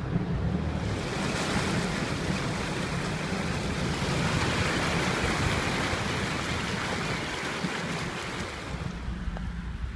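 A car's tyres pushing through deep standing floodwater: a steady rushing wash of water that swells about a second in and eases off near the end.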